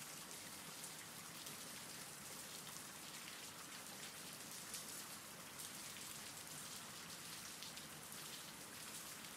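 Faint, steady rainfall: an even hiss of rain falling, with no speech or music over it.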